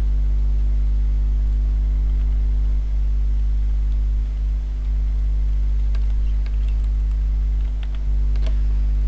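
Steady electrical mains hum on the recording, with a few faint computer keyboard clicks in the second half as a value is typed in.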